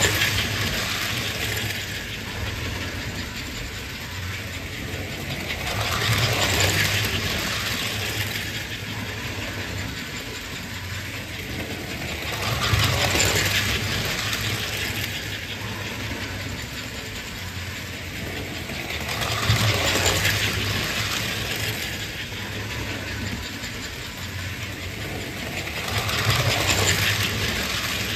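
American Flyer S-gauge electric toy trains running on a layout: a steady low motor hum under the clatter of wheels on track, which swells about every six and a half seconds as a train passes close by and then fades.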